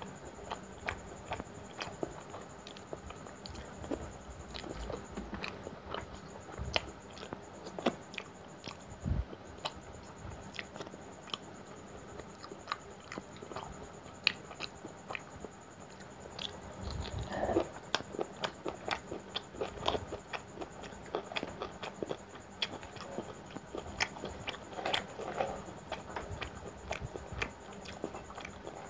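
Close-up chewing and mouth smacking of a person eating soft luchi soaked in mutton curry: a run of wet clicks and smacks, busiest around the middle and again near the end.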